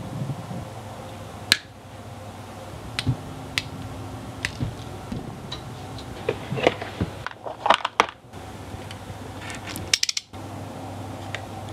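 Small sharp clicks and light metallic ticks of electronics bench work, with a short tinkle of clipped component leads dropping onto a wooden bench near the end, over a steady low hum.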